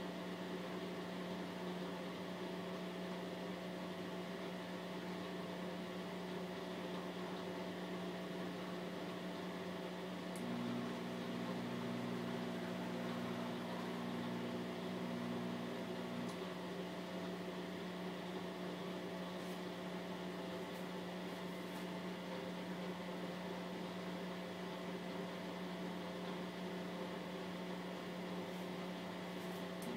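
Bosch WVT 1260 washing machine in its final spin: the motor and drum give a steady hum with a constant whine. About ten seconds in a second, lower hum joins and the sound grows slightly louder for some six seconds, then drops back.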